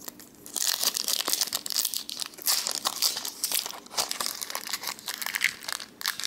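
Foil Pokémon booster pack wrapper crinkling and tearing as it is opened by hand, in spurts of crackly rustling with brief pauses.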